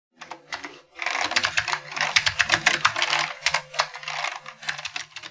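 Rapid, irregular typing clicks over a low hum, a few at first and then a dense run from about a second in, cutting off suddenly at the end.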